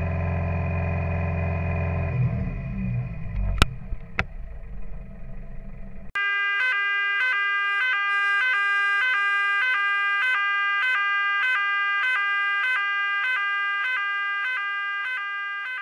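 New Holland TL100 tractor's diesel engine running, heard from the cab as a steady low rumble, with two sharp clicks about three and a half and four seconds in. About six seconds in it cuts off abruptly and a repeating electronic tune of beeping notes takes over.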